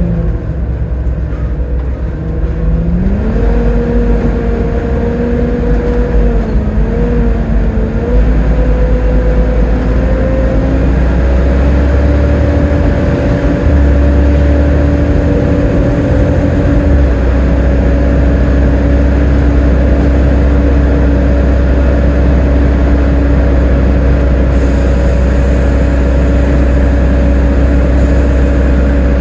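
Volvo B7TL double-decker bus's engine and driveline whine under a heavy low rumble. The whine drops at first, rises as the bus pulls away about two to three seconds in, climbs gradually for several more seconds and then holds steady as the bus cruises.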